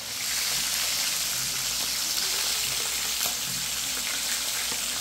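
Whole fish frying in hot oil in a skillet: a steady, loud sizzle with occasional pops from the oil.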